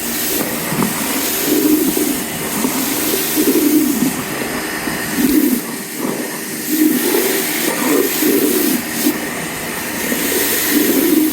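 Kärcher K2 electric pressure washer running, its water jet hissing steadily onto patio paving, swelling and fading every second or two.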